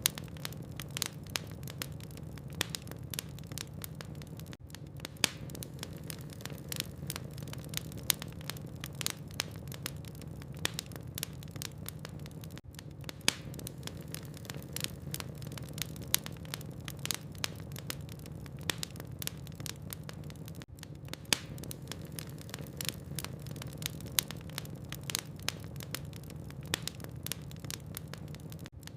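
Wood logs burning in a fireplace, crackling with frequent sharp, irregular pops and snaps over a steady low hum.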